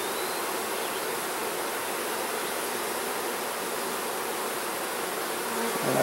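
Steady hum of many honeybees buzzing around an open hive.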